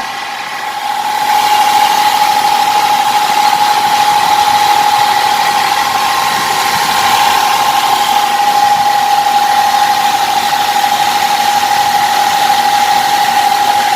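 Hyundai Santa Fe transfer case humming at road speed: one steady whine over road noise, growing louder about a second in and then holding, loud. The mechanic takes it for a worn bearing inside the transfer case.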